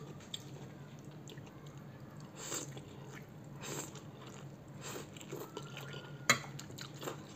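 A person slurping and chewing a mouthful of spicy instant noodles with petai beans, several short slurps about a second apart. A single sharp click a little over six seconds in is the loudest sound.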